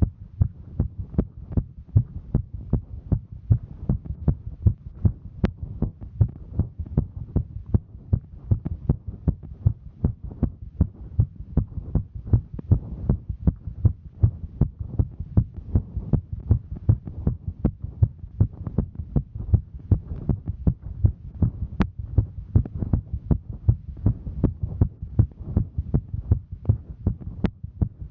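A woman's heartbeat, beating as a steady, regular train of deep thuds over a low hum, her heart working from the exertion of hiking.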